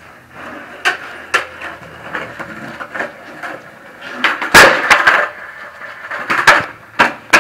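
Skateboard on a concrete slab: the wheels roll with a few clacks, then the tail pops loudly about halfway through and the wooden deck clatters against the concrete several times as the flip trick is not landed.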